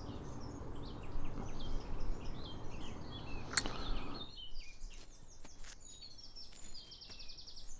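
Songbirds chirping and calling, many short notes, with a rapid trill near the end, over a background hiss that drops away about four seconds in. A single sharp click about three and a half seconds in.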